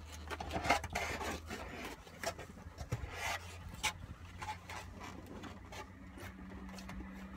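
Foam takeout container creaking and rubbing in the hands, with a fork scraping and clicking through rice and chicken in it. Short scrapes and clicks come thickest in the first few seconds, over a low steady hum.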